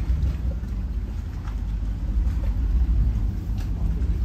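Lake passenger ship's engine running with a steady deep rumble.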